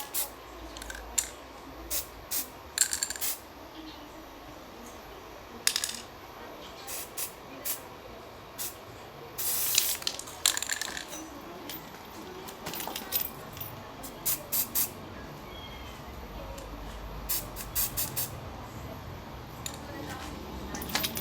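Aerosol spray paint can giving many short, irregular spritzes, each a quick hiss with a click, while a camouflage pattern is dabbed on. One longer spray comes about nine and a half seconds in.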